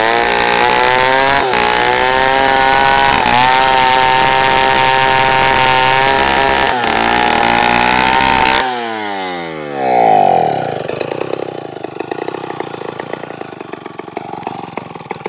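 Two-stroke chainsaw ripping a log lengthwise at full throttle, its engine note steady under load. About eight seconds in the throttle is released and the engine winds down, revs once briefly, then settles to a ragged idle.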